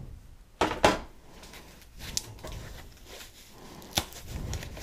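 Unpacking a wall clock: two loud knocks just under a second in as the box and wrapped clock are handled, then scattered clicks and crackle as the white foam wrapping is pulled at, with a sharper click near the end.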